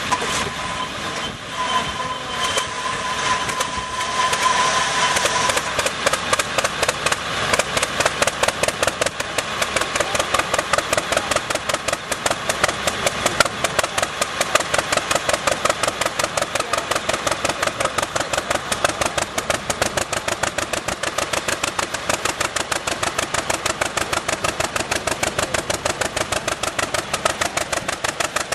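1949 John Deere BW tractor's two-cylinder engine being started. It catches about four to six seconds in, then runs with an even, steady putt-putt beat.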